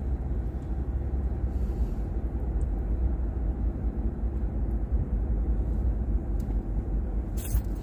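Steady road rumble heard inside a moving car's cabin, tyres and engine running at cruising speed. A brief high hiss comes near the end.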